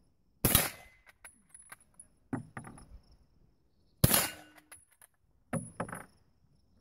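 Two shots from a Krag-Jorgensen bolt-action rifle, about three and a half seconds apart, each a sharp crack with a short echo. Between them come smaller metallic clicks and clatter as the bolt is worked.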